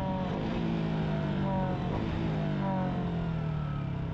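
Motorcycle engine during quick downshifts, with the clutch pulled in just past the biting point and the throttle blipped before each gear change. The engine note falls several times, stepping back up between the drops as it slows under engine braking.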